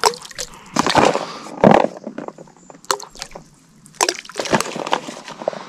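Irregular water splashes and wooden knocks around a small rowing boat, about seven short hits, as handfuls of boilies are scattered into the lake.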